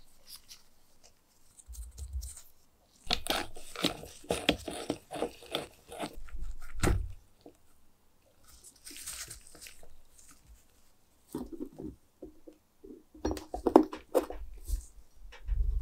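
Gloved hands handling the parts of an old metal lamp fixture as it is taken apart: bouts of rubbing and rustling with small clicks and knocks of metal and ceramic parts, in two busy stretches with a pause between.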